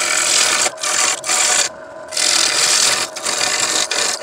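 A scraper cutting a spinning dogwood bowl on a wood lathe: a loud hissing scrape in several passes, broken by short pauses as the tool comes off the wood, the longest about two seconds in. A steady hum from the lathe runs underneath.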